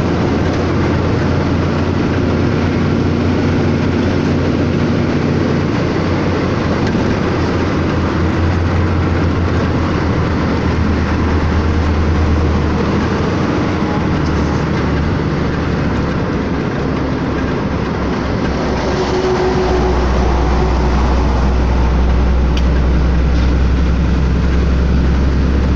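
Truck's diesel engine running and road noise heard inside the cab while driving at speed. The engine's low hum steps down in pitch about two-thirds of the way in.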